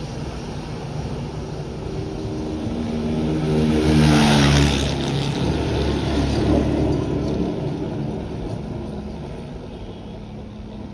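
Twin jet engines of a Royal Air Maroc Boeing 737 running at taxi power. The whine and rush swell to a peak about four seconds in, then fade gradually as the airliner taxis away.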